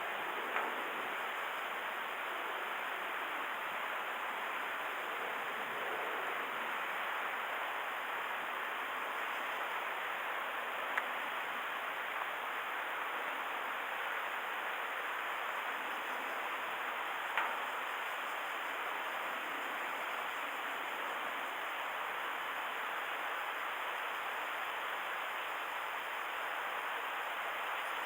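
Steady rushing wash of wind and water at a river mouth, even throughout, with a few faint clicks.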